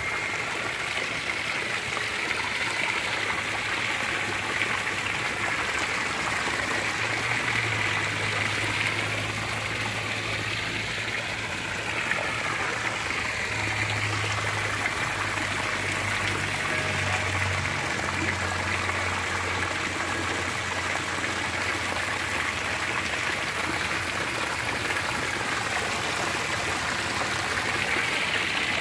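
Small garden pond waterfall: water spilling in thin sheets over a stone ledge and splashing into the pond below, a steady even rush of falling water.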